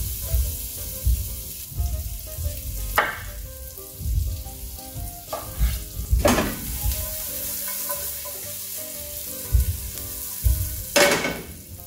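Chopped garlic sizzling in hot oil in a stainless steel sauté pan on a gas burner, the sizzle flaring up three times as the garlic is stirred and the pan tossed. Faint background music underneath.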